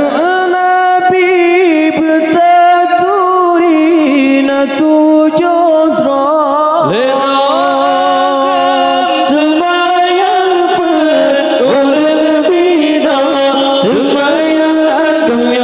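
Male voices chanting an Acehnese nasyid, a devotional sung poem, unaccompanied and amplified through microphones, with long held notes that waver and turn in ornaments.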